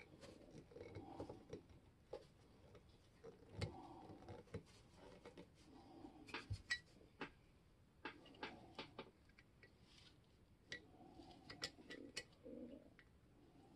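Faint, irregular small metal clicks and ticks of a screwdriver turning screws into a cast-iron level's frame, with soft handling noise between them.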